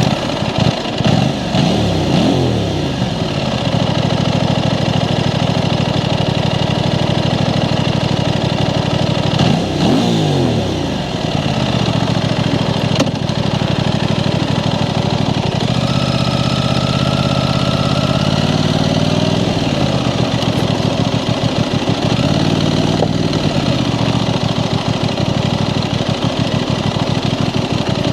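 Aprilia Tuono 660 Factory's parallel-twin engine on its stock exhaust, idling just after start-up. It gives a quick rev and drop about two seconds in and again about ten seconds in, then settles to a steady idle that rises and falls gently.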